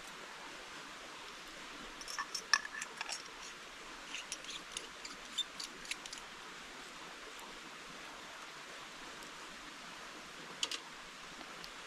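A run of small, sharp clicks and light taps in two clusters, then a brief pair near the end, over a steady hiss.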